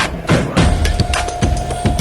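Background music with a steady drum beat: kick drums about twice a second with sharp snare and hi-hat hits, and a held synth note coming in about half a second in.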